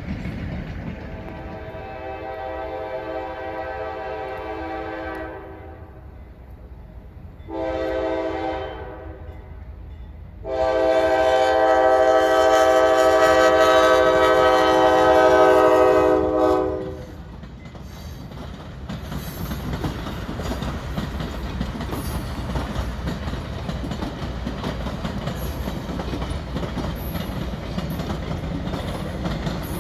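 Diesel locomotive air horn sounding for a road crossing: a long blast, a short one, then a longer, louder blast of about six seconds. Then the passenger cars roll past with a steady rumble and wheels clacking over the rail joints.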